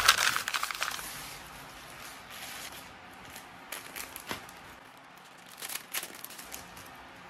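Plastic packaging crinkling as small art prints and sticker sheets are handled in a clear plastic sleeve over a plastic mailer bag. There is a burst of crinkling and tearing in the first second, then a few light crinkles and rustles.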